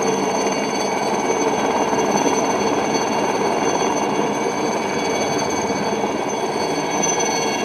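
Helicopter hovering overhead while holding a sling-loaded concrete bucket on its long line: steady rotor and engine noise with a high whine on top.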